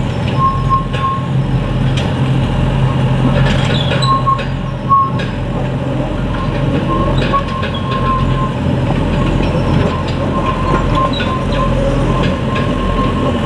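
Two small diesel locomotives of a narrow-gauge peat railway running steadily as they haul a full train of peat wagons past. Thin high wheel squeals come and go, with scattered knocks from the wagons.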